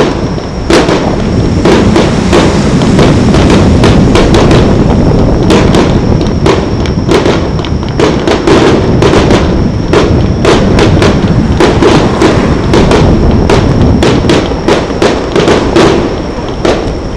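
Fireworks going off over the water in a rapid, loud run of bangs and crackles, several a second.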